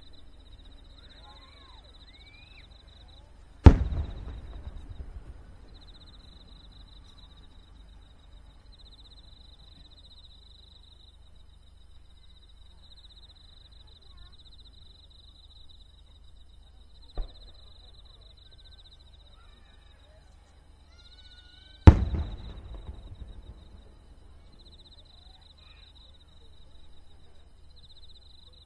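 Aerial firework shells bursting: two loud booms about eighteen seconds apart, each trailing off in an echo over a couple of seconds, with a smaller sharp bang between them. Insects chirp steadily in high, pulsing runs throughout.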